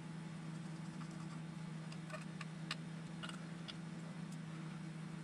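Faint, scattered light clicks and ticks of small RC car parts being handled and fitted on a workbench, over a steady low hum.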